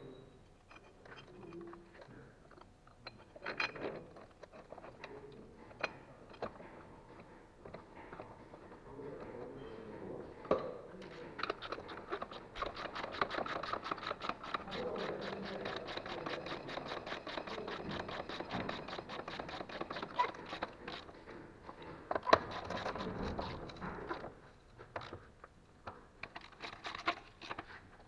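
Ratchet wrench clicking rapidly in a long spell through the middle, tightening the bolts of a refitted lower engine mount (torque rod). Scattered metallic knocks of tools on the mount bracket, the loudest one near the end of the clicking.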